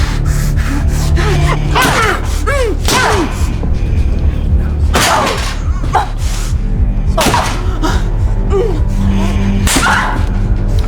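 Low droning horror score, with a woman's wavering sobs and gasping cries breaking over it every second or two.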